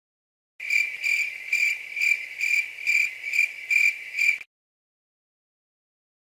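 Crickets-chirping sound effect: a high, steady chirp repeated about twice a second for roughly four seconds, starting and stopping abruptly. This is the stock "crickets" effect used in vlogs to mark an awkward silence.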